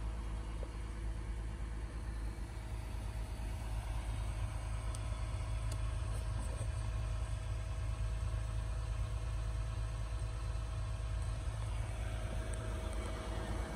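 Steady low rumble with a faint constant hum above it. It does not change and has no distinct knocks or tool sounds.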